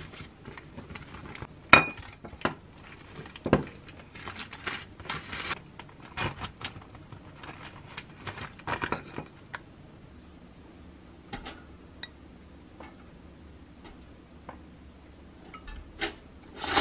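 Hands handling food in a kitchen: plastic wrap crinkling and rustling, and slices of bread set down on a ceramic plate with light clinks and knocks. The handling is busy for the first ten seconds, then thins to occasional ticks, with a louder click near the end.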